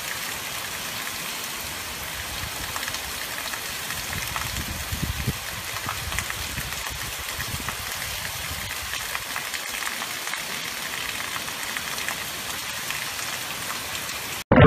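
Hurricane wind and heavy rain: a steady, even hiss of driving rain, with a few louder gusts between about four and six seconds in.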